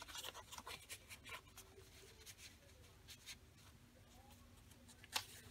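Faint rustling and scraping of paper as a tag and journal card are slid in and out of a paper pocket in a handmade junk journal, with one sharper click about five seconds in.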